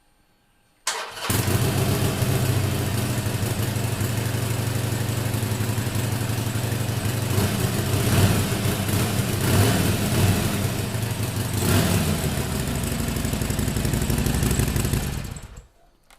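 Harley-Davidson Forty-Eight's 1200 cc air-cooled V-twin on its stock mufflers, starting about a second in and running with several short blips of the throttle, then switched off near the end.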